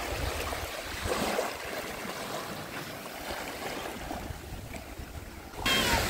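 Small sea waves washing onto the shore, with wind rumbling on the microphone; the rush of water gets suddenly louder near the end.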